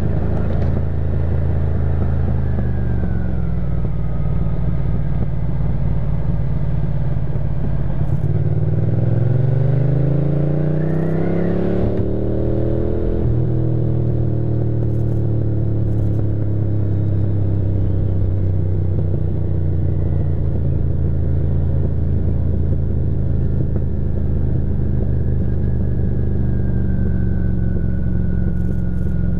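Ducati motorcycle engine running under way. Its pitch climbs for several seconds near the middle as it revs up, then drops suddenly at a gear change, and it runs on steadily after.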